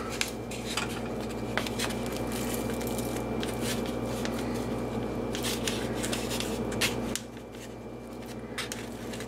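Hands lifting and turning over raw, seasoned steaks in a metal tray: soft rustles, wet squishes and light clicks against the tray. Underneath runs a steady background hum that cuts off about seven seconds in.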